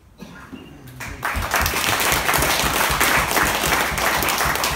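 Audience applauding. The clapping breaks out about a second in and then holds at a steady level.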